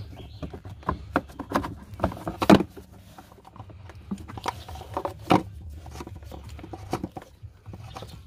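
Hand tools and metal parts clicking and knocking irregularly while an oil filter housing is being refitted. The loudest knocks come about two and a half seconds in and again about five seconds in, over a low steady hum.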